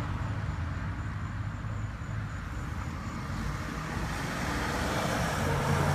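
Road traffic passing: engine and tyre noise of a vehicle dying away, then another vehicle coming up and getting louder near the end.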